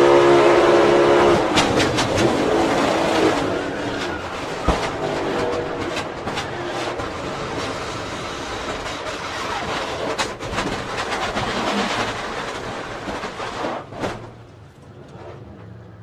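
NASCAR stock car's V8 at full throttle in a pack, then a crash: about a second and a half in the engine note breaks up into a long grinding, rushing noise with repeated bangs and rattles as the car slides, spinning and scraping along the wall. A last hard hit comes near the end, after which it is much quieter.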